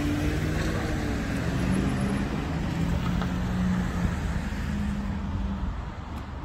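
Road traffic noise with a motor vehicle's engine humming close by, its pitch shifting every second or so; the sound eases slightly near the end.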